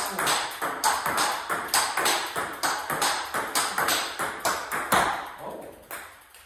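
Table tennis forehand loop rally: the ball clicks off Hurricane 3 Neo rubbered paddles and bounces on the table in a steady back-and-forth, about two sharp hits a second. The rally stops about five seconds in.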